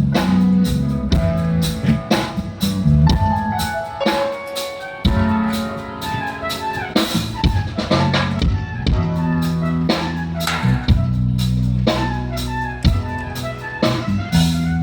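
Band playing an instrumental passage: a drum kit keeping a steady beat under held bass notes and a melodic line. It cuts off abruptly at the very end.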